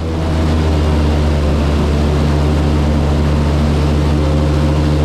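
Airboat's engine and air propeller running steadily while the boat is underway: a loud, even low hum with a rush of air noise over it.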